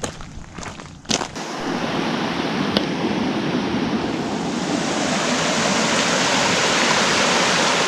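A few footsteps, then from about a second in the steady rush of running stream water. It grows gradually louder and then holds.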